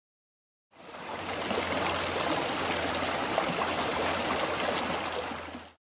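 Shallow mountain stream rushing and riffling steadily over rocks and cobbles. It fades in about a second in and fades out near the end.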